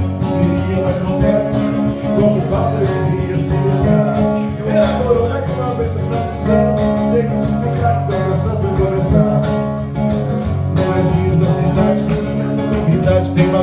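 Forró band playing dance music with a steady beat and sustained melodic notes over a pulsing bass.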